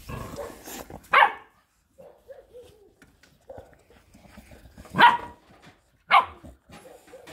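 A terrier barking in play: three short, sharp barks, one about a second in and two close together near the end.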